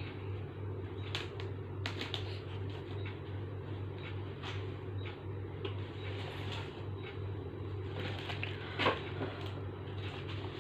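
Packaging being handled during an unboxing: scattered small clicks, taps and rustles over a steady low hum, with one louder knock near the end.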